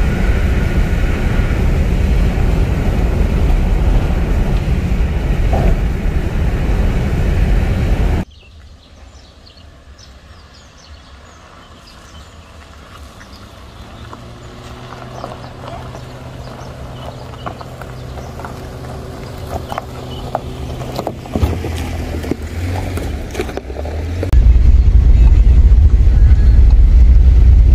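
Road rumble inside a car cruising on a highway, which cuts off suddenly. Then a quieter stretch where an SUV's engine hum slowly grows louder as it drives up, with scattered clicks. Near the end comes a loud low rumble of driving on a rough forest track, heard from inside the car.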